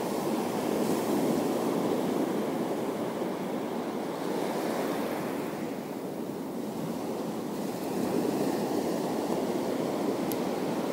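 Sea waves washing against the shore: a steady rushing that swells and eases slowly, with some wind on the microphone.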